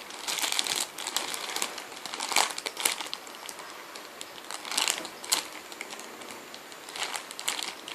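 Irregular crinkling and rustling with scattered light clicks, from squishy toys and plastic being handled and moved about.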